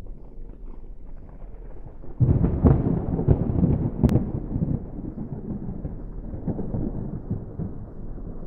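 A thunder rumble: a low rolling rumble that jumps suddenly about two seconds in, then rolls on and slowly eases off.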